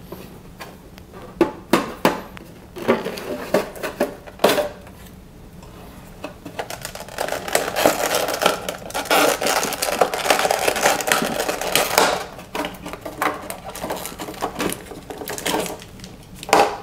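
A sealed trading card box being opened by hand: a few taps and clicks of handling, then several seconds of dense crinkling and tearing as the packaging seal comes off, then more scattered clatter.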